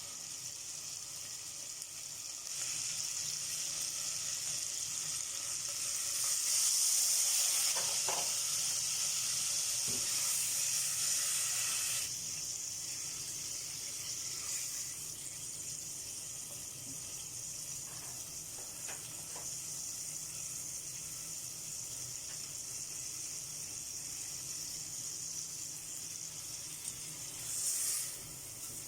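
Food sizzling in hot oil in a cooking pot, getting louder a couple of seconds in and easing back to a steadier, quieter sizzle about twelve seconds in, with a short louder hiss near the end.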